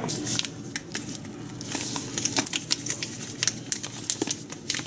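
Foil whole-bean coffee bag crinkling as it is handled, a dense run of irregular crackles and small clicks.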